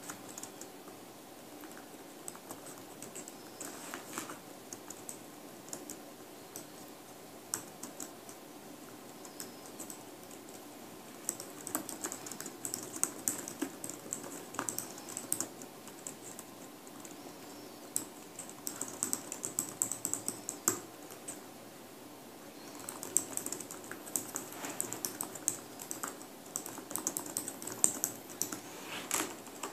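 A pen writing on paper: quiet scratching strokes and small taps in spells of a few seconds, busiest in the second half, over a steady low room hum.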